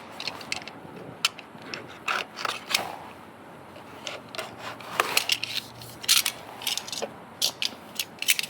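A keyboard's retail box being opened and its contents handled: scattered scrapes, rustles and light taps, about a dozen sharp clicks spread unevenly.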